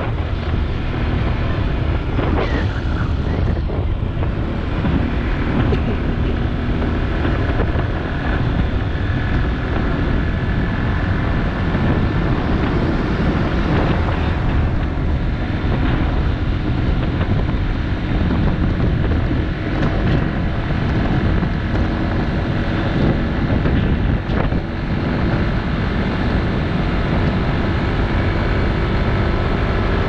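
Motorbike riding at speed on an open highway: engine running steadily under heavy wind noise buffeting the microphone.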